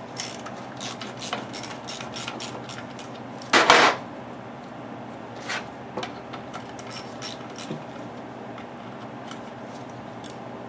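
Hand wrench turning a bolt on a Briggs & Stratton engine's gas tank bracket: a run of light metal clicks and taps. About three and a half seconds in there is one louder, brief rasping clatter, and after it the clicks come only now and then.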